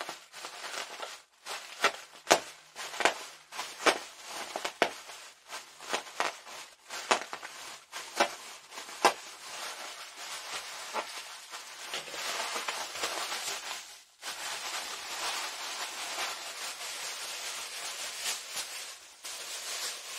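Plastic snack pouches of plantain chips crinkling and crackling as they are stabbed and pressed to let the air out: sharp crackling snaps for the first several seconds, then a steadier crinkling rustle from about twelve seconds in.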